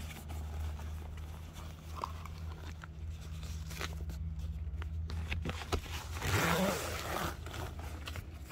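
Heavy-duty zipper on a canvas tent bag being pulled open, with short clicks and canvas handling noise over a steady low hum; a louder burst of canvas rustling comes about six seconds in.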